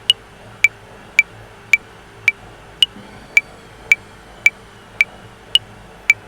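Electronic metronome clicking at 110 beats per minute in 5/4 time, a higher-pitched accented click marking the first beat of every five.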